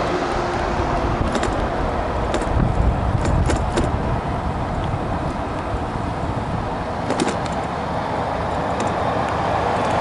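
Steady rumble of wind and tyre noise from an electric scooter riding along an asphalt path, broken by a few short rattling clicks, a cluster in the first four seconds and another about seven seconds in.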